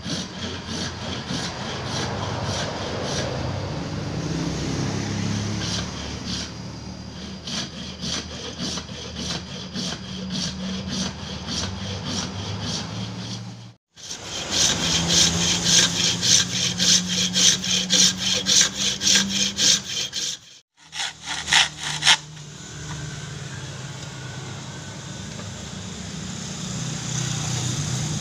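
Thin-bladed hand frame saw cutting buffalo horn in steady back-and-forth strokes. It breaks off twice for a moment, and between the breaks the strokes are louder and sharper.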